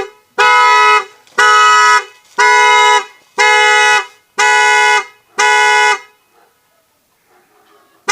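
Renault Trafic's horn sounding in even blasts about once a second, six times, then stopping about six seconds in, with one short toot near the end. The car alarm has been wired to sound the horn in place of its siren, so this is the alarm going off.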